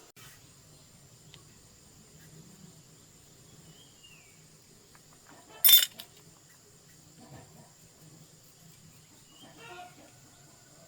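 Steady high-pitched insect trill with a low hum underneath, broken by one short, loud, sharp knock about halfway through.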